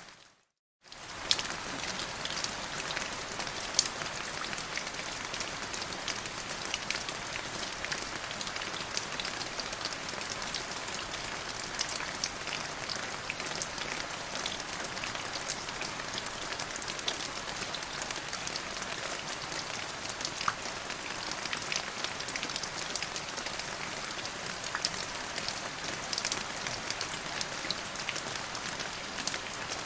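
Steady rain falling, with many individual drops ticking sharply over the even hiss. It cuts out completely for under a second right at the start, then resumes.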